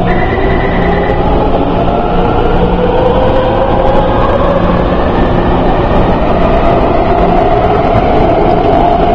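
A Taipei Metro Bannan line train running past behind closed platform screen doors: a steady loud rumble of wheels on rail, with the motor whine slowly rising in pitch as the train picks up speed pulling out of the station.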